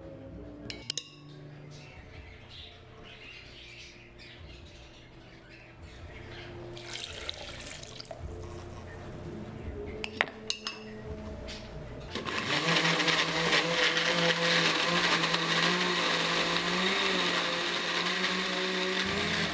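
A few clinks and handling knocks, then about twelve seconds in an electric blender starts and runs steadily, its motor pitch wavering a little under load.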